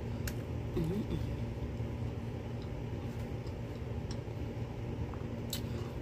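A person chewing a bite of lettuce wrap with the mouth closed, with a few sharp mouth clicks and one short hum about a second in, over a steady low background rumble.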